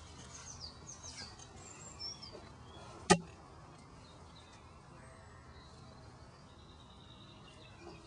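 Songbirds chirping in short high glides over a faint low outdoor hum, quieter in the second half. A single sharp click about three seconds in.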